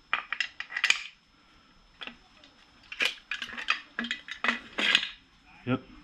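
Steel floor jack cross beam parts clinking and clanking against each other as they are handled and fitted together: several clusters of sharp metal clinks over the first five seconds, and one more near the end.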